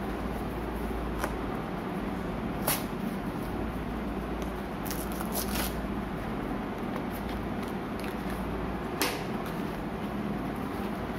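Paperboard cartons being handled against a cardboard shipping box: a few short sharp taps and rustles, loudest about two and a half seconds in and near the end, with a brief cluster midway. A steady hiss and low hum sit under them throughout.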